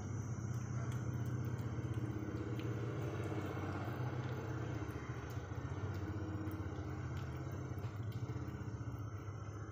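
A steady low motor drone with faint scattered clicks.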